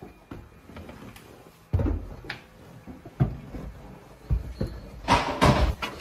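Footsteps thudding on wooden stairs, about one heavy step a second, with a louder rustling noise near the end.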